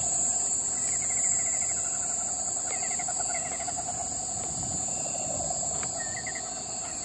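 Night chorus of insects in mangroves: a steady high-pitched shrill with a lower pulsing trill under it, and short chirping trills coming and going over the top.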